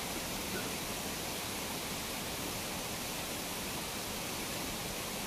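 Steady, even rush of a waterfall, with no breaks or distinct events.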